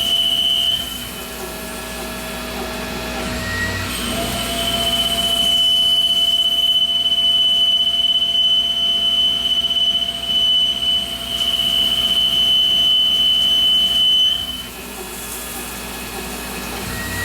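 Tormach Slant-Pro CNC lathe cutting a 1045 cold-rolled steel cone, with a steady high-pitched whine while the tool is in the cut. The whine stops about a second in. It comes back about four seconds in and holds for some ten seconds, then drops away again near the end, leaving a lower machine hum between cutting passes.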